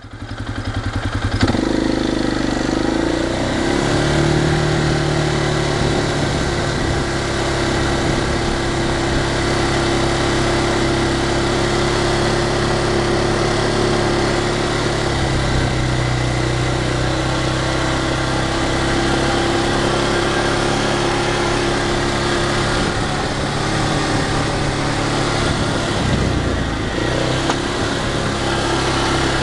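ATV engine running steadily while riding along, swelling up in the first couple of seconds, with its pitch shifting a little a few times.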